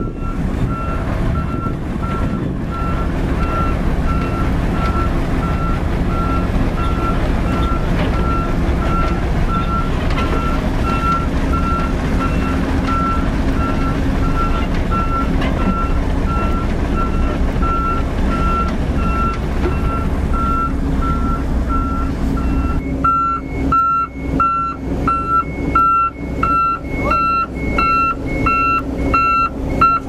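Mitsubishi Fuso self-loader truck reversing, its back-up alarm beeping steadily at about two beeps a second over the rumble of its diesel engine. The beeps grow louder and sharper in the last seven seconds.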